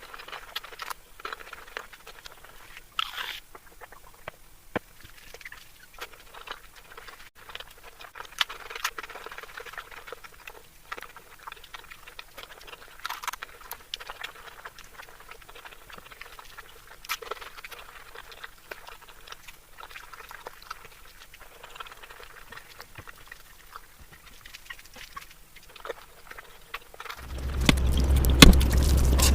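Close-miked eating sounds: chewing of curry and rice, with many small wet clicks and smacks scattered throughout. Near the end, a loud, steady low rumble sets in and continues.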